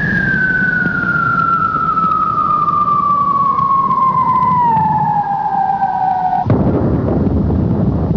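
A falling whistle sound effect in the soundtrack, gliding steadily down in pitch for about six and a half seconds, then cut off by a sudden loud burst of noise that rumbles on to the end, with a low bed of sound underneath throughout.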